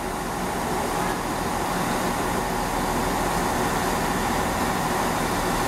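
Great Western Railway Class 166 diesel multiple unit's underfloor diesel engines running steadily, a constant drone with hiss that grows a little louder over the first second.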